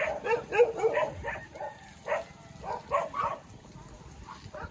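A rapid run of short, sharp animal calls, several a second at first, then fewer and quieter toward the end.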